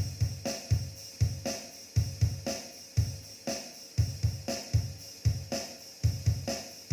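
Drum-machine beat from the Zoom G1Xon multi-effects pedal's built-in rhythm function: a steady, repeating pattern of kick, snare and hi-hat.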